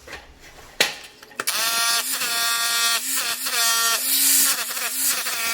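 Two sharp knocks, then a power chipping hammer breaking up slab concrete, running in long stretches with a steady motor whine that dips briefly a few times.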